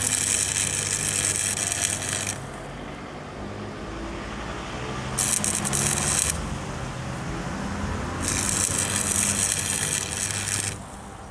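Electric arc welder crackling and hissing as it welds the torn-off axle bracket back onto the cart's steel frame. There are three welding runs: one at the start lasting about two seconds, a short one of about a second near the middle, and one of about two and a half seconds near the end, with quieter gaps between them.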